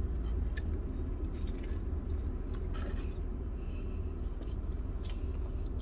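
A person chewing a mouthful of spicy chicken sandwich with the mouth closed, with a few soft wet mouth clicks, over a steady low hum inside the car cabin.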